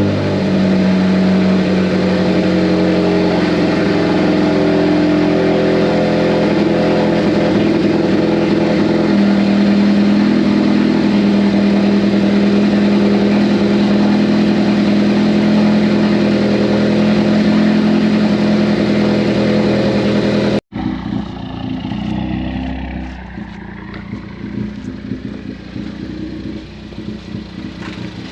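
Ford Focus ST's turbocharged engine running at a steady idle just after its first start following an intercooler install. About twenty seconds in the sound cuts off abruptly and a quieter, rougher engine sound takes over.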